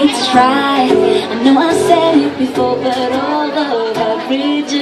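Live female vocals singing a pop song over a strummed acoustic guitar, amplified through PA speakers.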